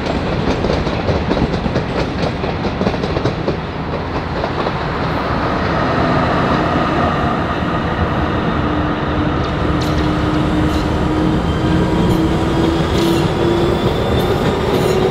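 W-class tram running along street track, wheels rumbling and clicking on the rails, with a motor whine that rises slowly in pitch through the second half as the tram gathers speed.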